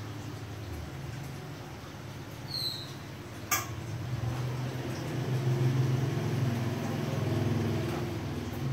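A low motor hum that swells in the second half, with one sharp click about three and a half seconds in.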